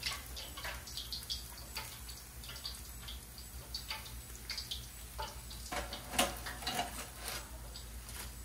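Hot frying oil crackling and sizzling as oil drips from a freshly fried whole snapper held in a wire spider skimmer back into the pan, over a steady low hum. About six seconds in, a louder clatter of metal as the skimmer and fish are set down on a wire cooling rack.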